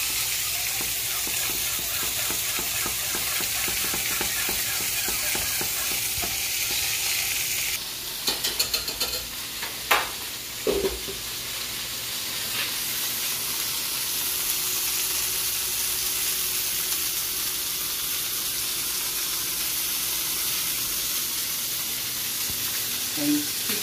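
Chicken tenders pan-searing in a skillet, a steady sizzle, with a few sharp clinks of utensils on pans about eight to eleven seconds in.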